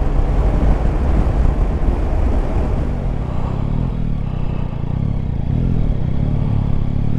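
Yamaha Tracer 9 GT's 890 cc three-cylinder engine running at low road speed, with wind and road noise on a helmet-mounted camera microphone. The wind noise eases about halfway through, leaving a steady engine hum.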